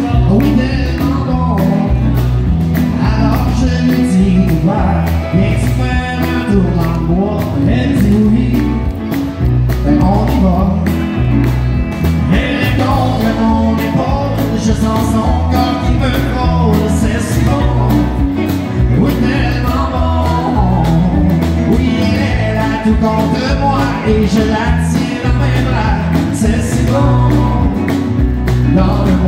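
Live country band playing: acoustic guitar, electric guitar, bass and drums keeping a steady beat, with a male lead singer singing.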